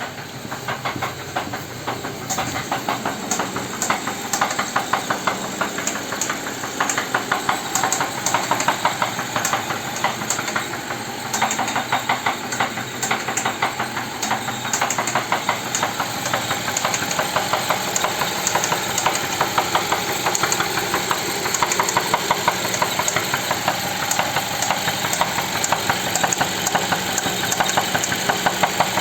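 Nissan Patrol Y62 engine running at idle with a rapid, regular knocking from inside it, several strikes a second. The knock's cause is unknown to the owner.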